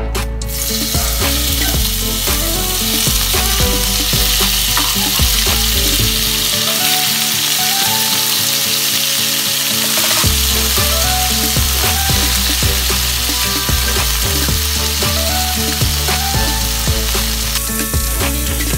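Beef strips sizzling in hot oil in a wok and being stirred with tongs. The sizzle starts about half a second in as the meat goes into the pan and eases a little near the end.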